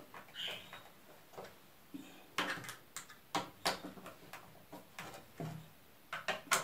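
Scattered light clicks and knocks, an old corded drill and a screwdriver being handled and adjusted against plastic and wood, with short quiet gaps between. The drill is not running.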